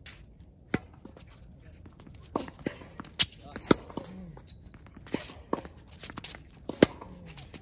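Tennis rally on a hard court: crisp pops of racket strings striking the ball and the ball bouncing, spaced irregularly, a second or so apart. The loudest pop comes near the end.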